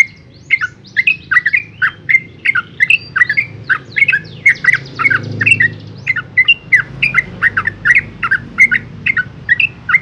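Yellow-vented bulbul singing in a long, continuous run of short, sharp, chattering notes, several a second without a break: the rapid 'ropel' song that bird keepers play to prompt caged bulbuls to answer.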